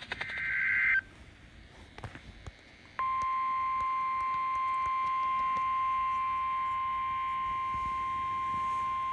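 NOAA Weather Radio alert signalling: a warbling burst of SAME digital data tones cuts off about a second in. About two seconds later the steady, high 1050 Hz warning alarm tone starts and holds, announcing the next warning.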